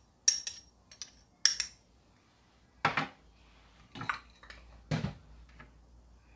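Kitchen utensils clinking against dishes while sugar is being measured out. There are several sharp, ringing clinks in the first couple of seconds, then three duller knocks about a second apart.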